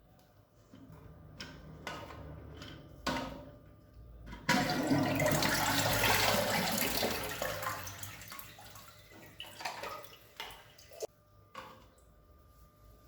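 One-piece toilet flushed: a few clicks, then a sudden rush of water about four and a half seconds in that fades away over several seconds, followed by a few light knocks.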